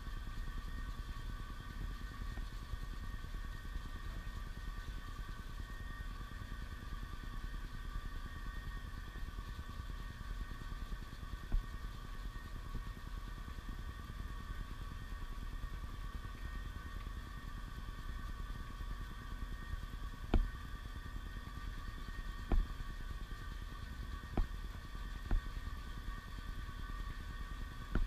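A steady mechanical hum made of several unchanging tones over a low rumble, with a few short sharp knocks in the second half.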